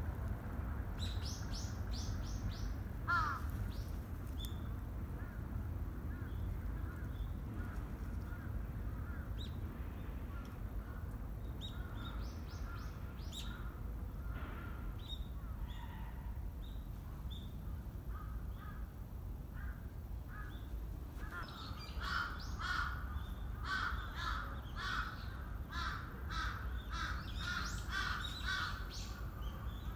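Outdoor bird calls over a steady low rumble: a quick run of high chirps about a second in, scattered calls through the middle, and dense repeated harsher calls through the last third.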